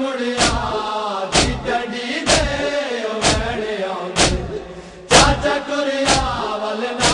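A men's group chanting a Punjabi noha in unison, with a rhythmic chest-beating (matam) slap about once a second. The chanting thins out briefly a little after four seconds in, then comes back with a loud strike.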